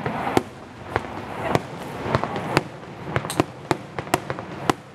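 Aerial fireworks bursting overhead in quick succession: about ten sharp bangs, irregularly spaced, in under five seconds.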